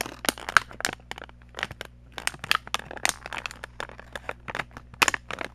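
Plastic toy packaging crinkling and crackling as it is handled, a fast, irregular run of sharp crackles and clicks.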